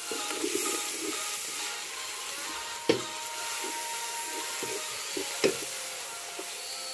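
Spiced meat sizzling in a steel pot over a wood fire while it is stirred and scraped with a wooden stick. The stick knocks sharply against the pot twice, about three seconds in and again near five and a half seconds.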